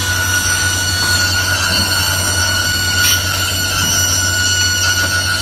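Automatic circular saw cutting machine running, its blade cutting copper tube with a steady high-pitched whine over a low motor hum. A brief tick about three seconds in.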